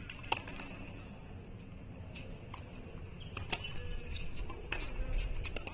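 Tennis ball bouncing on a hard court and being struck by rackets during a point: a series of sharp pops at uneven intervals, over a steady high background hum.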